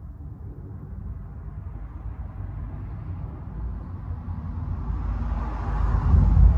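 A road vehicle driving past, its low rumble and tyre noise growing steadily louder, loudest about six seconds in, then starting to fade.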